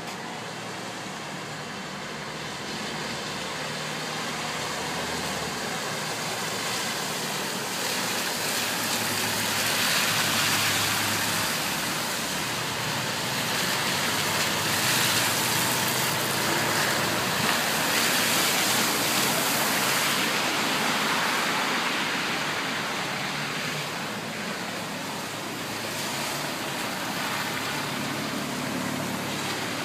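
Cars driving through shallow floodwater on a road, a steady hiss of tyres in water that swells about a third of the way in as traffic passes, then eases off again.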